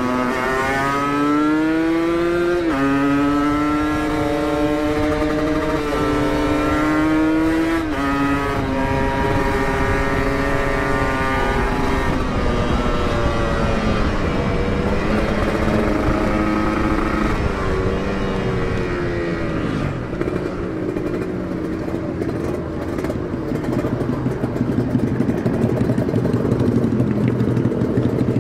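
Kawasaki Ninja motorcycle with an Aitech aftermarket exhaust accelerating hard through the gears under full throttle. The engine note climbs and falls back at each upshift, about three, six and eight seconds in, then carries on at a steadier, lower pitch.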